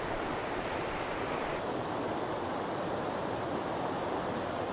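A river's water rushing steadily.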